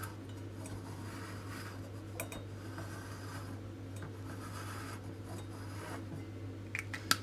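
Marker pen tip rubbing across the top of a thin sheet-metal pot as the pot is turned against it, a faint steady scratching. A few light clicks come near the end.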